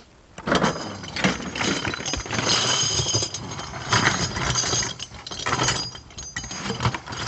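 Spent brass shell casings, large 20 mm and .50-calibre cases among them, being poured from a bucket into a plastic tote. Starting about half a second in, they slide and tumble against each other in a continuous metallic clatter and clinking.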